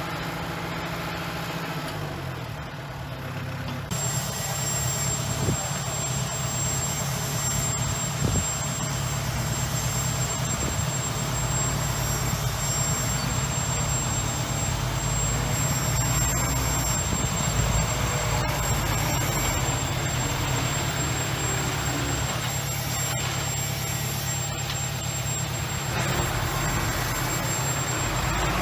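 Heavy diesel engine of earthmoving machinery running steadily with a low rumble. The sound shifts abruptly about four seconds in and gets somewhat louder.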